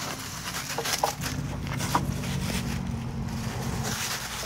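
Dry fallen leaves rustling and crunching as a puppy scampers and tussles with a plush toy in them, with a few sharp crackles. A steady low engine hum joins about a second in and fades near the end.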